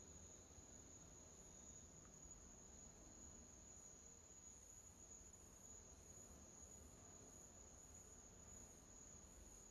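Near silence: room tone with a faint, steady, high-pitched whine and, from about four seconds in, a faint pulsing hiss above it.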